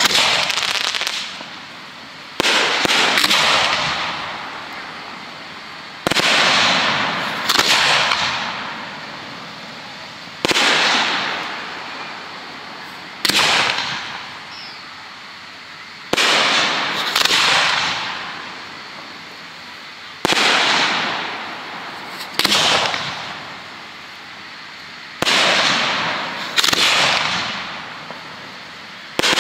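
Display fireworks going off in a steady run: about a dozen sudden bangs, often two close together, every few seconds, each trailing away over a second or two.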